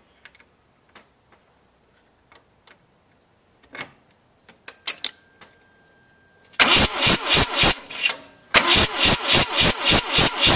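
After a few faint clicks, the starter motor cranks the Mazda RX-7's 13B rotary engine from about two-thirds of the way in. It goes in an even, loud pulsing of about four beats a second, with one short break, and the engine does not catch. The top right trailing spark plug is out for a spark test.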